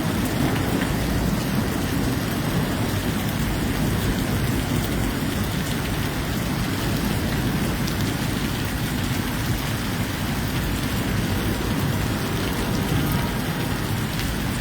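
Heavy rain mixed with small hail falling steadily, a dense continuous patter with occasional sharper ticks.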